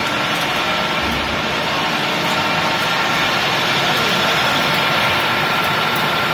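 16K25B lathe running steadily: a constant machine noise with a thin steady whine.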